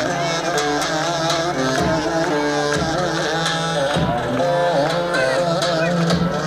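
Loud Romani dance music: a winding, ornamented melody over a steady drum beat.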